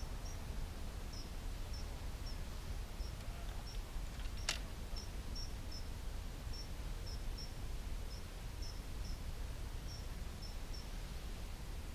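Lakeside ambience: a small bird's short, high chirps repeated irregularly about twice a second over a steady low rumble. A single sharp click sounds about four and a half seconds in.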